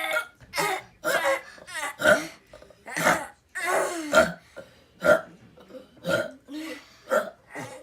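A child making armpit burps, a hand pumped against the armpit: about a dozen short sputtering bursts in quick succession.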